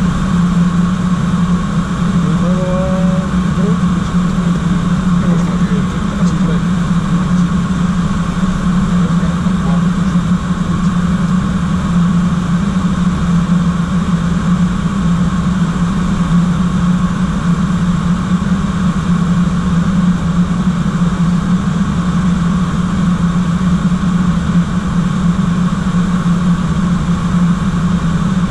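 Steady flight-deck noise of an airliner in descent: a constant low hum with a thinner steady tone above it and an even hiss of air.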